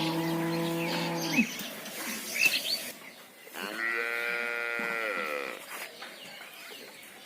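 Cow mooing twice: a low moo that ends about a second and a half in, then a second, higher-pitched moo lasting about two seconds. Short high chirps sound in between.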